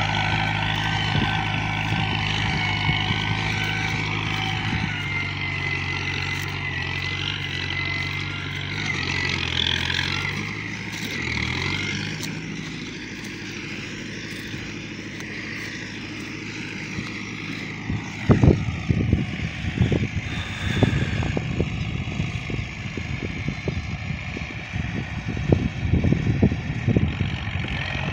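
Valmet 65 tractor's diesel engine running steadily under load while pulling a three-disc plough, fading away after about twelve seconds. From about eighteen seconds in, irregular low thumps and buffeting on the microphone.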